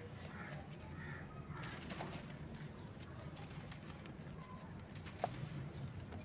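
Dry dirt and cement powder crumbling and trickling through fingers into a basin of powder, a soft gritty hiss with fine crackles. Birds call in the background, and a single sharp click comes about five seconds in.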